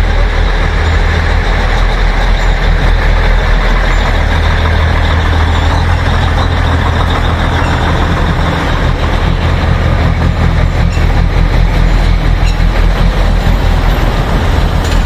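Narrow-gauge diesel locomotive engine running with a steady, loud low drone as the toy train comes into the station.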